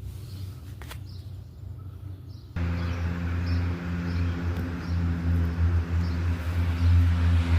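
Faint birds chirping over a low rumble, with a single click about a second in; then, about two and a half seconds in, a loud steady low mechanical hum starts abruptly, the even drone of a running motor or engine.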